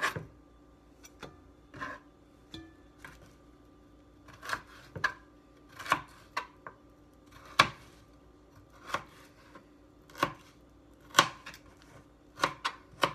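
Chef's knife slicing raw butternut squash into thin strips on a plastic cutting board: about a dozen sharp taps of the blade on the board at an irregular pace, roughly one a second.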